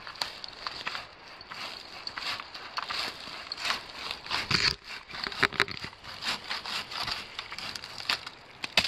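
Hand pole saw rasping through a hard, woody chaga growth on a birch trunk, in quick irregular strokes, some louder than others.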